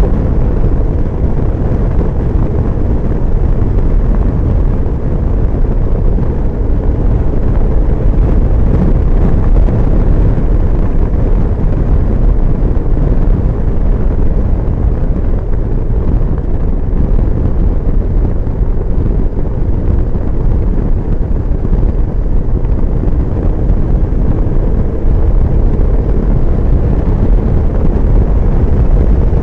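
Loud, steady wind rumble on a helmet-mounted microphone from riding a BMW R1150GS motorcycle at highway speed.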